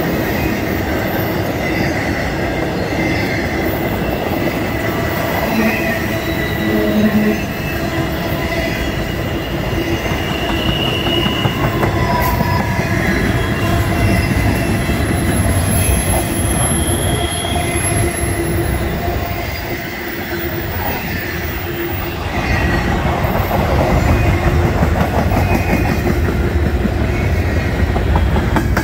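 Empty intermodal flatcars and well cars of a freight train rolling past close by: steady wheel-on-rail noise with clanking and short, high wheel squeals. It grows louder over the last few seconds.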